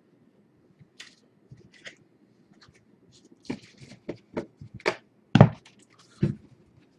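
Hands handling cards and packs on a table: scattered light taps and clicks, growing busier in the second half, with a couple of sharper knocks about five and a half and six seconds in.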